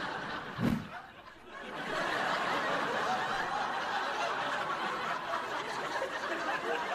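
Studio audience laughter that dips briefly after a short low thud about a second in, then swells again and carries on as a steady wave of laughing.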